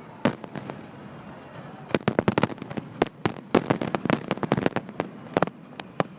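Fireworks going off in a rapid string of sharp bangs and crackles: a few scattered cracks at first, then dense volleys from about two seconds in, easing off near the end.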